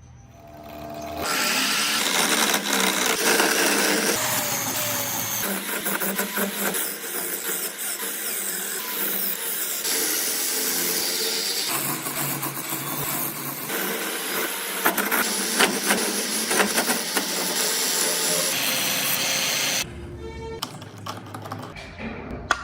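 Handheld power carving tool grinding into wood, a steady rasping noise that changes abruptly in level and character several times.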